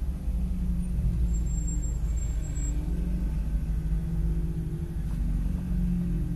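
2019 Mazda MX-5 Miata's 2.0-litre four-cylinder engine running at a steady pitch, heard from inside the cabin over a low rumble of road and wind noise.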